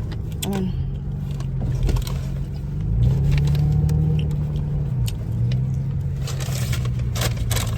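Car engine running, heard from inside the cabin, as a steady low hum. Its pitch rises about three seconds in and settles back about two seconds later, with a few small clicks and rustles over it.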